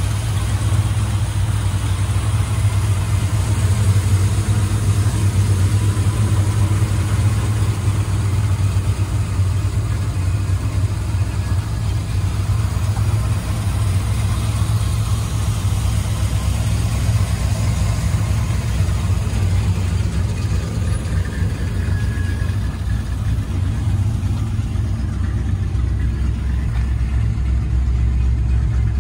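Ford 302 V8 crate engine with a four-barrel Edelbrock carburettor idling steadily through long-tube headers and dual exhaust, a low, even rumble.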